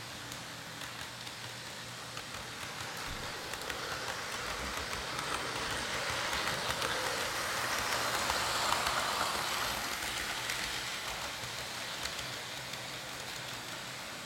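HO scale model train running along the track, its wheels hissing and clicking on the rails, growing louder as it passes close by about eight seconds in and then fading away.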